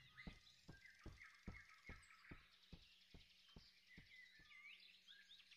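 Very faint, evenly spaced ticks, about two and a half a second, growing fainter and dying out, over faint high chirping.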